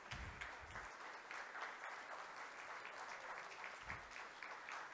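Audience applauding: many hands clapping in a dense, irregular patter, fairly faint.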